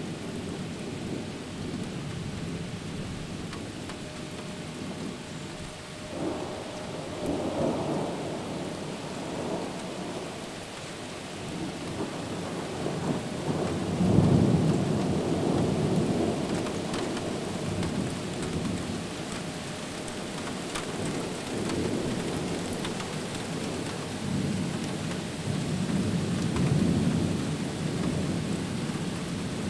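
Thunder rumbling repeatedly over steady rain. One rumble rises about six seconds in, the loudest peal breaks about halfway through, and further rumbles roll in toward the end.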